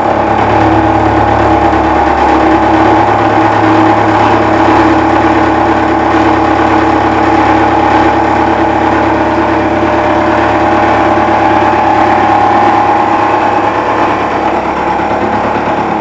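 Milling machine taking a facing cut with a 2-inch face mill fitted with SPUN carbide inserts: a steady, loud cutting sound over the spindle's hum, coming in suddenly as the cut starts and easing a little near the end. It is an even, clean-running cut.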